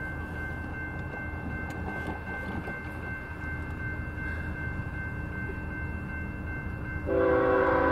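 Railroad grade-crossing warning bell ringing steadily as the gates come down. About 7 seconds in, the approaching BNSF GEVO locomotive's Nathan K5HL five-chime air horn starts blowing loud and close.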